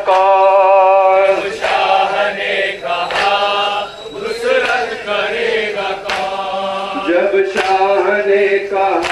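A male voice chanting a nauha, a Shia lament for Imam Hussain, in long held notes over horn loudspeakers. A few sharp slaps cut in near the middle.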